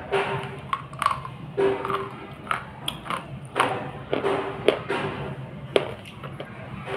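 Slate pencil being chewed right at a clip-on mic: irregular sharp crunches, about one or two a second.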